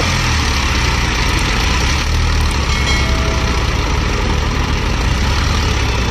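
Eicher tractor's diesel engine running steadily, with an even, fast low beat.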